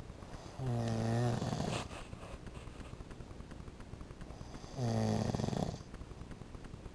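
A man snoring: two snores about four seconds apart, each about a second long, a low droning tone that ends in a rasp.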